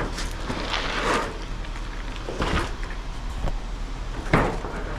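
Thin sheet-steel door skin being pulled and peeled off its styrofoam core: a few scraping, crinkling bursts of light metal, with a sharp knock about four seconds in.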